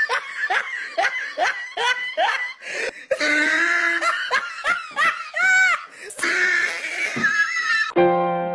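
A person laughing hard in quick repeated bursts, about three a second at first, then in longer breathy stretches. Piano music starts just before the end.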